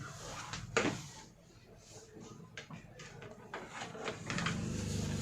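Scattered clicks and knocks of power-supply cables and parts being handled inside a PC case, the loudest about a second in. A low steady hum comes up near the end.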